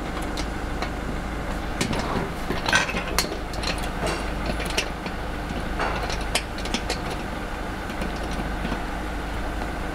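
Scattered small clicks and scrapes of a screwdriver doing up the screws on a ship light's glass cover, over a steady low mechanical hum.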